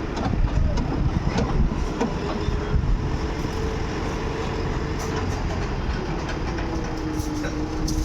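Heavy construction vehicle's engine running with a deep, steady rumble, a whine over it that drops in pitch about six seconds in, and scattered clanks.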